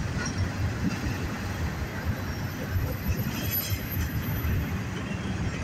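Freight train rolling past, a steady rumble of wheels on the rails that rises and falls unevenly.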